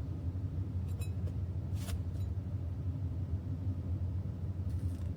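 A steady low hum, with a couple of faint short clicks about one and two seconds in.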